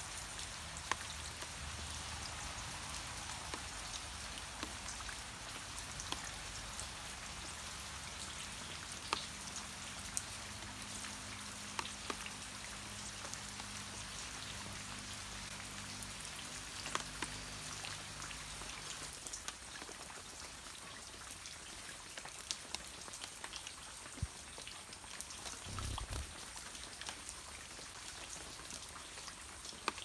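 Steady outdoor hiss with scattered sharp ticks, like light rain and drips, and a faint low hum through the middle.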